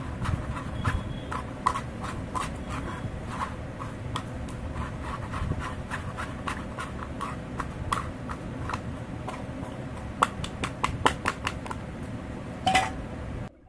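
A plastic spoon scraping and knocking as it presses mashed jamun (black plum) pulp through a mesh strainer, in irregular strokes of about two to three a second with a louder knock near the end, over a steady low hum.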